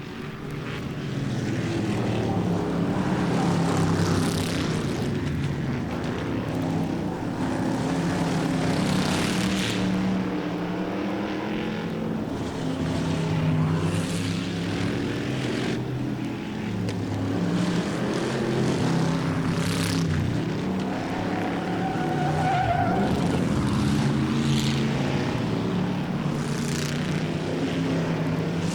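1960s stock car engines running on a short oval track during practice runs. The engine note rises and falls as the cars are driven through the gears. The sound fades in over the first couple of seconds.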